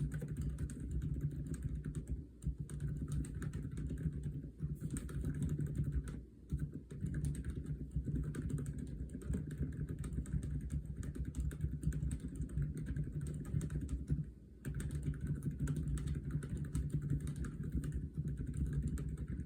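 Continuous fast typing on a customised Aula F87 mechanical keyboard fitted with silent Lime switches: a dense stream of muffled, low-pitched keystrokes, broken by three short pauses.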